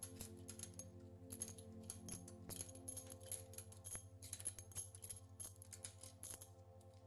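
Small metal engine parts clinking and clicking against each other as they are handled, in many quick irregular taps, over faint background music.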